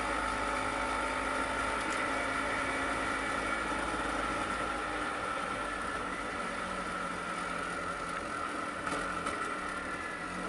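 Vespa PX 150's single-cylinder two-stroke engine running steadily while the scooter is ridden, its engine note holding an even pitch. A low rumble underneath eases off about halfway through.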